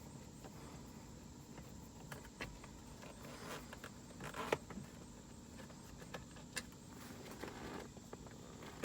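Faint, scattered clicks and small scrapes of a screwdriver backing out Phillips-head screws and handling the plastic dash trim of a BMW E46.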